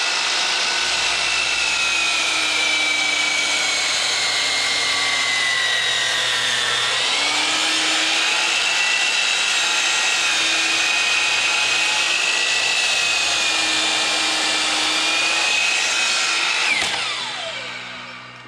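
Circular saw running steadily through a long freehand cut in a 4x6 wooden post, its motor whine dipping briefly in pitch about seven seconds in. Near the end the saw is let off and winds down with a falling whine.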